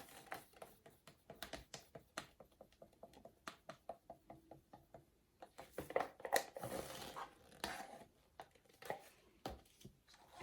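Light clicks and taps of plastic paint bottles and cup being handled while acrylic paint is layered into a pouring cup, with a busier cluster of taps a little past the middle.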